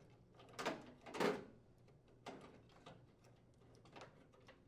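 Plastic door switch holder being pulled free of a microwave oven's metal frame, with its wires moving: two short scraping sounds about a second in, then several faint clicks and rattles.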